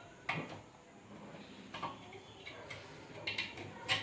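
Light metallic clicks and taps of a soldering iron and pliers against the inverter welder's circuit board and heatsink as a diode is pushed in and soldered: about half a dozen short clicks at irregular intervals.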